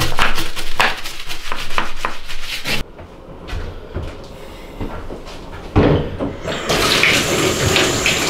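Rapid, rhythmic scrubbing strokes on tiled bathroom wall grout. After about three seconds this stops, and near the end a tap is turned on and water runs steadily into the bath.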